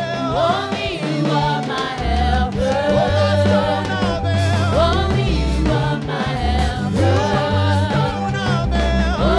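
Live gospel worship song: several women singing into microphones, a lead voice with backing voices, over a band with a steady bass line and light drums.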